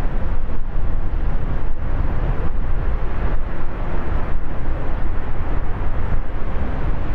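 Strong wind buffeting the microphone: a loud, gusting low rumble with a hiss over it.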